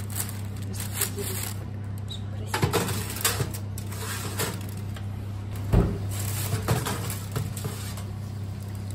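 A metal baking tray being slid in and out of an oven on its rack, with clanks and scrapes and rustling baking paper. A sharp knock about six seconds in is the loudest, over a steady low hum.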